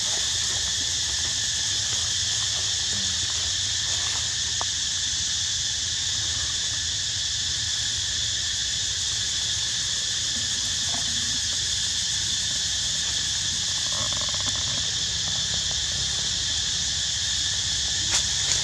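Steady chorus of insects in forest: a continuous high buzzing drone in several layered pitches that never lets up, over a low hum, with two sharp clicks near the end.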